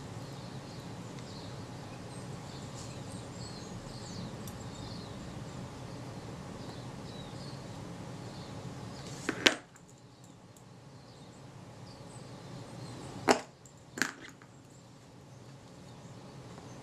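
Tweezers and a tiny retainer screw clicking against a metal lens barrel while the screw is being started: three sharp clicks, one about halfway through and two close together a few seconds later, over a faint steady hum that drops away after the first click.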